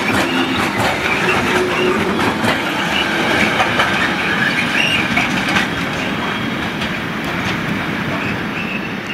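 Loaded timber wagons of a freight train rolling past, wheels clicking steadily over the rail joints with short spells of wheel squeal. The sound eases off about halfway through as the last wagon passes and the train draws away.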